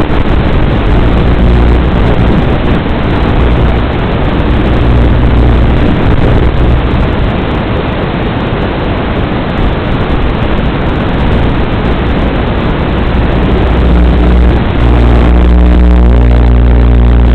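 An engine running steadily under a loud rushing noise. About fifteen seconds in, the engine hum grows louder and shifts in pitch.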